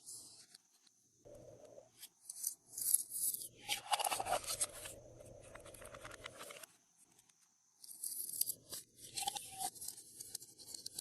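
Glossy slime being squished and stretched by hand, in two spells of dense crackling and popping from trapped air, with quiet pauses between.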